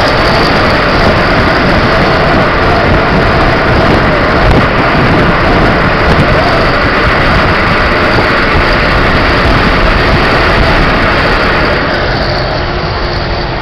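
Steady loud rush of wind and road noise in a truck cab driving at highway speed with the side window open, the engine running underneath. The rush eases a little near the end.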